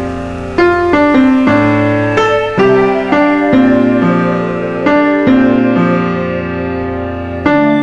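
Slow, gentle piano music: single notes and chords struck about once or twice a second, each left to ring and fade over sustained low bass notes.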